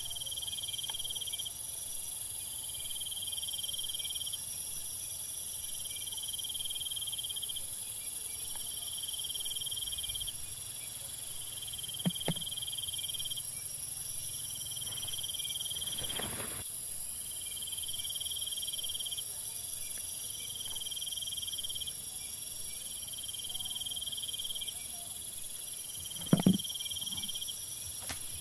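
A steady high-pitched chorus of insects trilling, swelling and fading in stretches of a second or two. A short knock about twelve seconds in and a sharper double knock near the end stand out above it.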